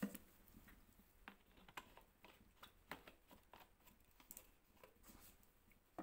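Faint, irregular crackles and pops from a wood fire burning in a clay stove under an iron kadai of heating oil, with one sharper click right at the start.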